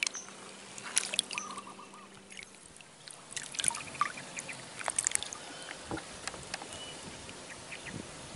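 Small splashes and drips of water with scattered short clicks, over a quiet outdoor background with a few faint bird chirps.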